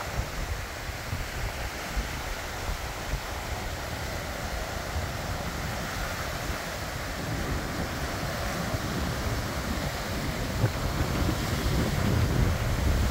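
Surf washing onto a rocky shore, with wind gusting on the microphone; the wind rumble grows louder near the end.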